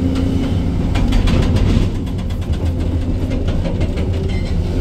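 Excavator's diesel engine running steadily under load, with two spells of rapid metallic clattering and knocking from the work with stone.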